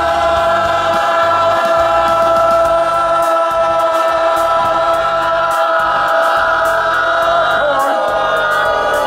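A choir-like chord of voices, swooping up into one long held note that carries on without a break.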